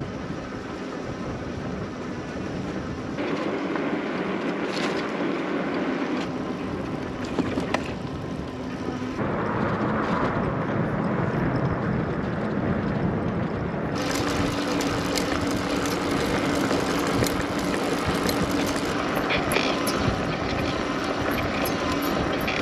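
Fiido T1 Pro electric cargo bike riding on a tarmac lane: tyres rolling on the road with a steady motor hum and wind on the microphone, the sound shifting at several cuts. Scattered light ticks come in the last third.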